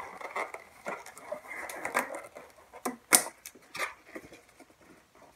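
Latex modelling balloons being twisted and rubbed together by hand as a small balloon tail is fixed on with a limo twist: irregular squeaks, rubs and clicks, with a sharp click about three seconds in.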